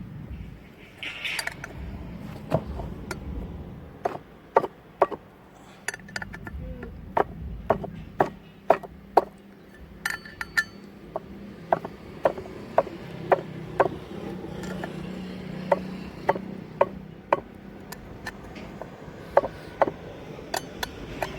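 Metal hand tools and motorcycle parts clinking and knocking together as a rear chain sprocket assembly is fitted back on, a string of sharp, irregular clicks about one or two a second over a low steady hum.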